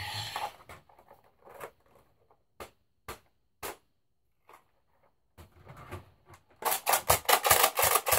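Plastic toy blaster parts being handled: a rustle at the start, then scattered single clicks and knocks, then a loud rapid clatter of plastic pieces for about two seconds near the end.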